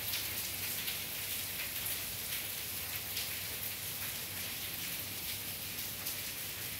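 Steady rain falling, an even hiss with scattered drops ticking.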